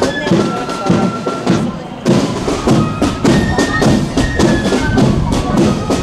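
Marching band playing on the march: side drums and bass drum beating a steady march rhythm under a high melody from wind instruments. The band briefly drops away about two seconds in, then comes back in fully.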